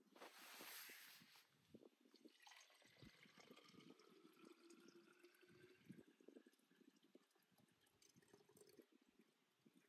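Water being poured into a small camping-stove pot, faint: a brief hiss of pouring, then a trickle whose pitch rises slowly as the pot fills, with light clicks of handling.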